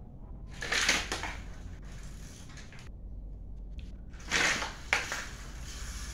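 Two short bursts of rustling, crinkling handling noise, about a second in and about four seconds in, the second ending in a sharp click, as a child's bicycle handlebar and the white plastic item on it are fiddled with.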